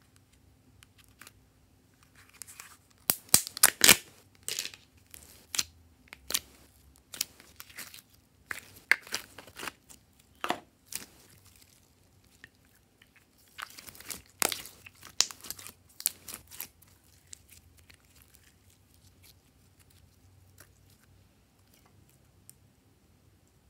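Glossy slime being opened out of its plastic tub and stretched by hand, its sticky surface crackling and popping in quick clusters of clicks: one long run a few seconds in and another about halfway through, then only scattered ticks.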